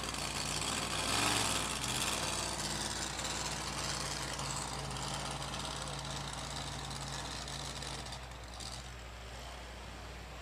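Two-wheel-drive pulling truck's engine running hard under load as it drags a weight-transfer sled down the track, a steady drone that eases off about eight seconds in as the pull ends.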